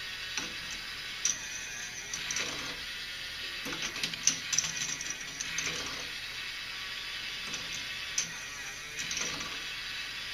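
K'nex ball machine circle lift running: a small motor drives the lift steadily while plastic balls click and rattle along the plastic track in irregular bursts every second or two, with a few sharp single clicks.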